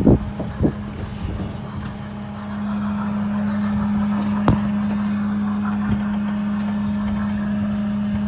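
Steady machine hum of the tractor and squash harvest conveyor running, growing louder about two and a half seconds in. A few thumps come near the start and one sharp knock about halfway.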